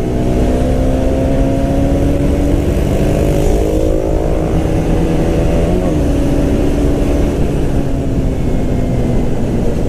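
KTM 125 Duke's single-cylinder four-stroke engine through its stock exhaust, accelerating under way. The note rises slowly for about six seconds, breaks briefly about six seconds in, then runs steady. Heavy wind rumble on the microphone runs under it.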